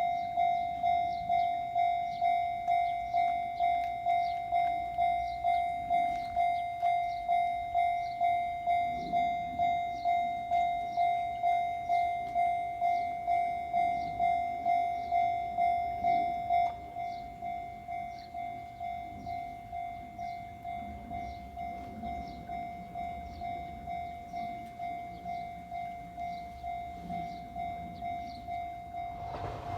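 Japanese railway level crossing alarm ringing its electronic bell in steady, even strokes, roughly five every three seconds, warning of an approaching train. About halfway through it drops to a noticeably quieter level and keeps ringing.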